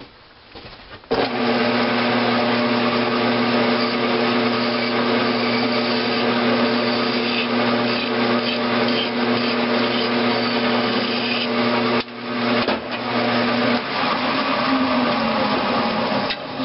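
Grizzly G9972Z metal-cutting bench lathe switching on about a second in and running steadily with a motor and gear whine, while a hand file scrapes against the spinning cast-iron valve head to round over its corner. Near the end the whine falls in pitch as the lathe slows.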